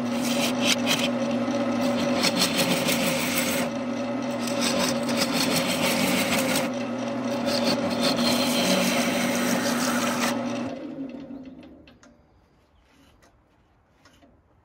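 Gouge cutting into a spinning redbud blank on a wood lathe: a scraping hiss of wood being shaved over the steady hum of the lathe motor. About ten seconds in the cut stops and the lathe winds down until it is nearly quiet, with a few faint clicks.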